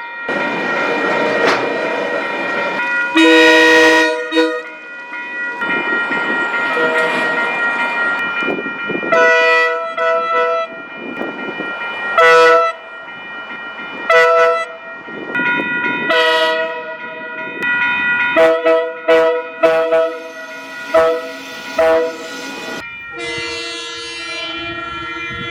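Train horns sounding a multi-note chord in a series of long and short blasts, several short blasts in quick succession about three quarters of the way through. A rushing noise of the passing train lies under and between the blasts.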